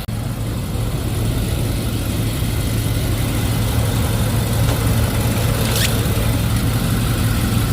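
Nissan Armada's 5.6-litre V8 engine idling steadily, heard close by from the wheel well, with a brief high-pitched chirp about six seconds in.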